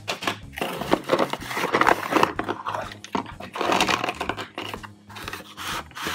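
Toy packaging crinkling and rustling as it is handled and opened, in irregular bursts with small sharp clicks.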